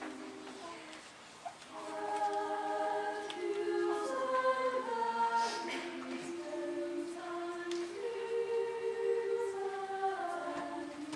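Mixed high-school choir singing sustained chords in harmony, the voices moving together from chord to chord. The sound thins to a quieter phrase end about a second in, then the choir comes back fuller at about two seconds.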